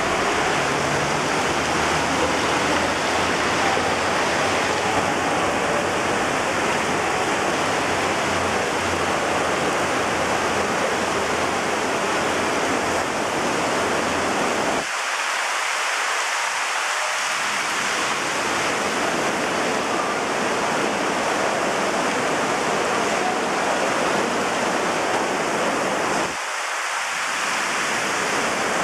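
Heavy rain pouring steadily onto a paved street, an even, dense hiss. A low rumble sits beneath it for about the first half.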